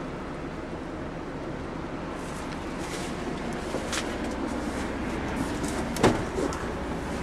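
Steady road and engine noise inside the cab of a diesel motorhome on the move, with scattered light clicks and rattles and one sharper knock about six seconds in.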